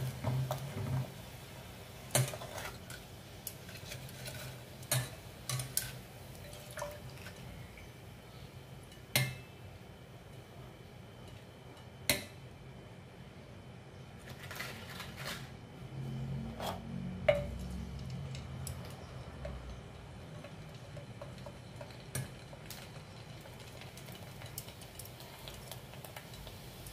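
Metal tongs clicking and scraping against a stainless steel pot while turning prawn crackers frying in oil: scattered sharp clinks over a steady low hum.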